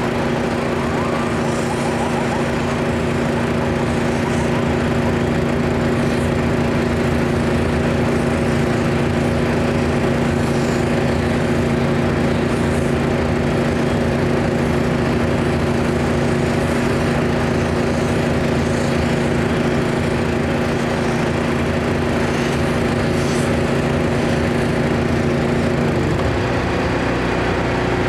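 Engine running steadily at one speed, then dropping to a lower pitch near the end.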